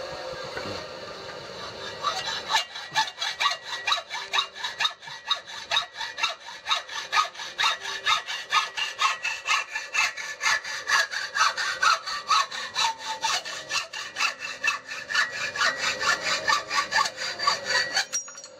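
Hand hacksaw cutting through a metal tube clamped in a bench vise: quick, regular back-and-forth strokes, about four a second. It starts about two seconds in and stops just before the end as the cut goes through.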